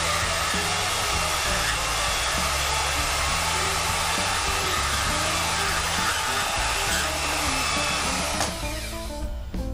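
Portable band saw cutting through a steel steering shaft held in a vise, running steadily until it stops about eight and a half seconds in.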